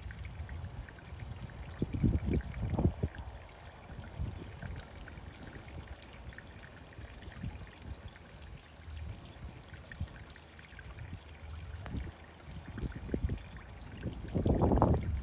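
Pond water trickling steadily, with a few low rumbling bumps about two to three seconds in and again near the end.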